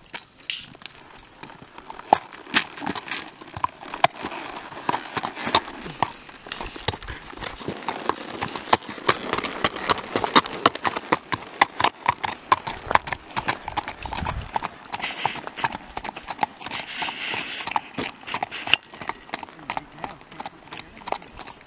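Shod hooves of a gaited Tennessee Walking Horse clip-clopping on hard road and gravel under a rider, a quick, even run of hoofbeats.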